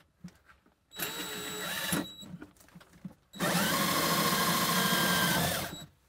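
Cordless drill spinning a 1-5/8-inch hole saw through the back panel of a utility vehicle's cab: a short run about a second in, then a longer, louder run from about three and a half seconds until near the end. Each run's whine drops in pitch as the drill stops.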